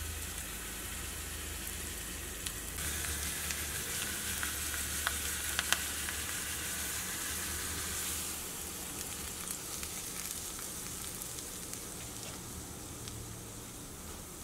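Tempering of onion, curry leaves and mustard seeds sizzling and crackling in hot coconut oil in a small steel pan. The sizzle dies away after about eight seconds, when the pan is tipped over the coconut chutney.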